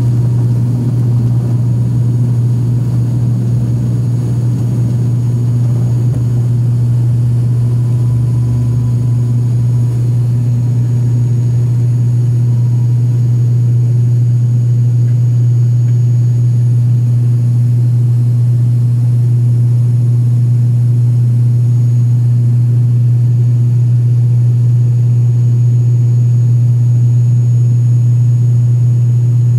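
Turboprop airliner's engines and propellers at takeoff power, heard from inside the cabin as a loud, steady low drone. Runway rumble runs under it for the first several seconds and fades after liftoff, leaving a smoother drone in the climb.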